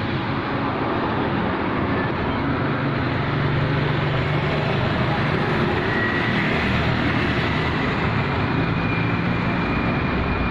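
Steady road traffic passing close by: engines and tyre noise of vehicles going past one after another, the engine notes changing every few seconds as different vehicles pass.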